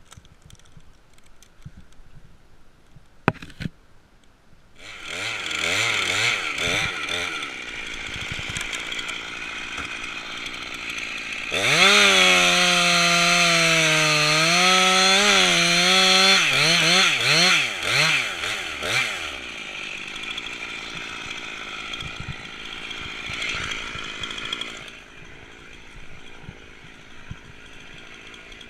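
Chainsaw engine starting up about five seconds in and revved in bursts. It is held at high revs for about five seconds around the middle, then revved up and down and left running lower before dropping off near the end.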